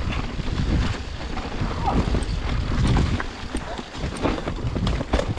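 Mountain bike ridden along a trail: wind buffets the microphone in a steady low rumble, and the tyres and frame clatter over bumps in short irregular knocks.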